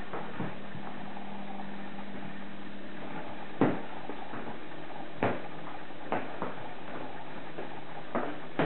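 Scattered knocks and taps from the cardboard carton and polystyrene packing being handled, about half a dozen, the loudest about three and a half seconds in, over a steady low hum.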